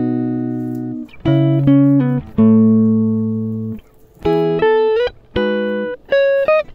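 Background music on a guitar: plucked notes and chords, each ringing out and fading before the next.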